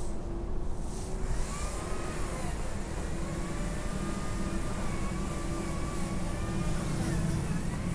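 An engine running steadily in the background, its pitch drifting slowly up and down, over a continuous low rumble.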